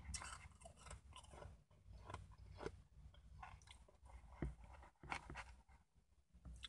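Mouth crunching and chewing shaved ice: irregular short crunches, loudest about four and five seconds in.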